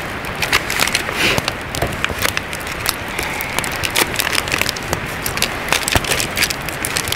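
Wood campfire crackling, a dense run of sharp pops and snaps.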